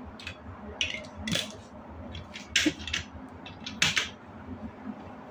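Small plastic building bricks clicking and clattering as they are handled and fitted together, with a few sharper clicks.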